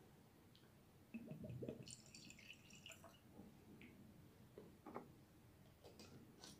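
Faint trickle and drips of whisky poured from a miniature bottle into a tulip-shaped nosing glass.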